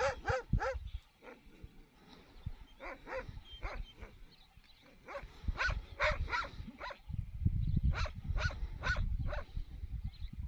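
A large dog barking repeatedly in short clusters of two to four sharp barks. A low rumbling noise joins in the last few seconds.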